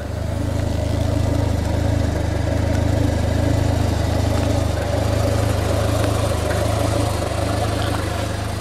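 A motor vehicle engine running steadily, a low hum that grows louder just after the start and eases slightly near the end.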